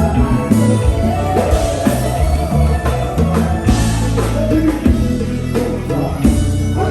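Konpa band music with a prominent electric bass line, its low notes changing beat by beat over steady drum strikes.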